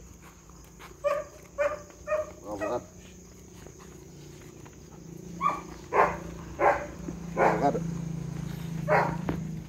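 A dog barking in short single barks: a few softer ones in the first three seconds, then louder ones from about five seconds in. A low steady hum runs underneath.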